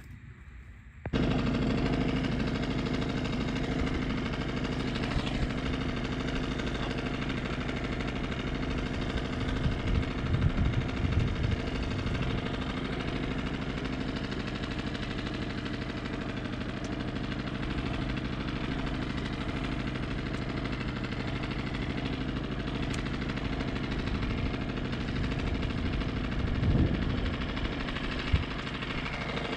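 Small outboard motor on an inflatable fishing boat running steadily at a constant speed, starting about a second in, with a brief knock near the end.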